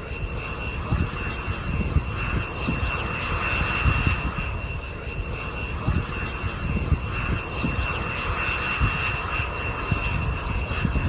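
Light single-engine propeller airplane running on a runway, its engine sound steady with a high whine, while gusts of wind buffet the microphone with an uneven low rumble.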